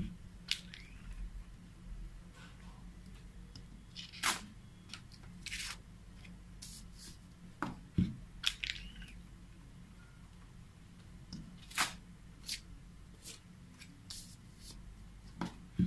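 Hand screen printing: short scrapes of a squeegee pulling ink across the screen mesh, mixed with taps and paper sheets being handled, scattered every second or two over a low hum. A low thump comes about halfway.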